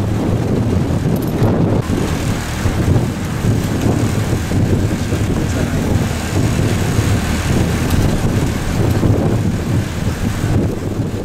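Wind buffeting the microphone on a moving motorboat, with the boat's engine running steadily underneath.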